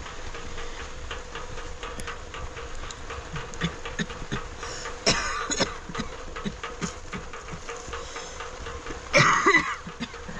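A person coughing twice, once about halfway through and again, louder, near the end, over a steady low hum and scattered light ticks and knocks.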